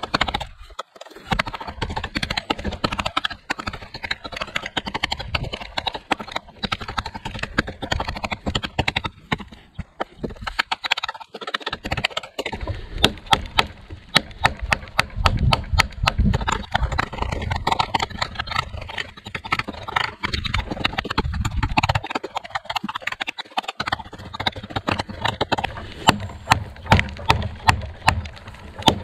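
Fixed-blade knife chopping into a tree trunk: a long run of sharp wooden knocks, coming several a second and faster in the second half.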